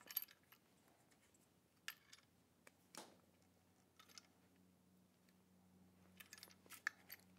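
Faint scattered clicks and clacks of an equatorial telescope mount head being handled and adjusted, with a small cluster of sharper clicks near the end, over a faint steady low hum.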